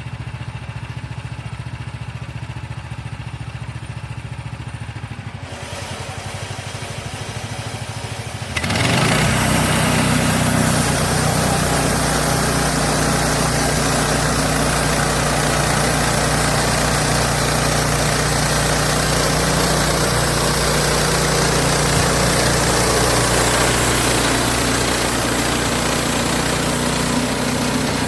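Wood-Mizer LX50 Super portable band sawmill's engine idling steadily, then revved up suddenly about eight or nine seconds in and running steadily at high speed, much louder, for the rest of the time.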